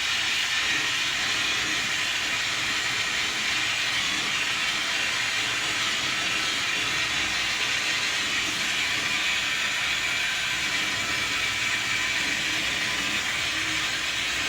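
Gas brazing torch flame hissing steadily on air-conditioning copper pipe.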